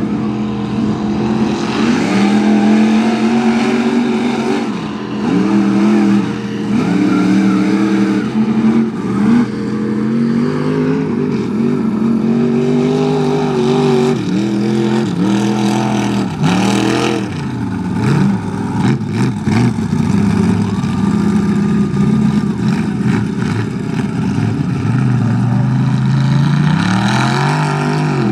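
Mud-bog truck engine revving hard, its pitch climbing and dropping over and over.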